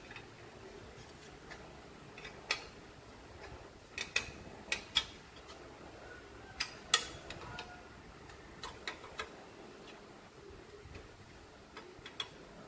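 Small open-end wrench clicking against hex nuts and a sheet-metal plate as the nuts are tightened. The clicks are sharp and irregular, bunched in the middle, with a pair near the end.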